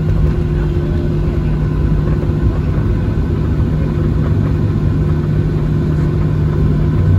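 Cabin noise of a Boeing 737-700 taxiing, heard from a window seat over the wing: the steady hum and rumble of its CFM56-7B engines at taxi power.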